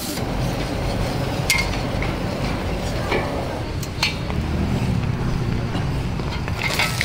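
Metal ladles clinking and scraping against a wok, a few sharp clinks over a steady low rumble.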